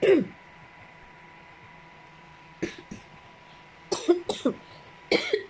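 A woman coughing in a fit brought on by a viral chest infection: two single short coughs, then more coming in quick pairs and a cluster near the end. A faint steady high hum runs underneath.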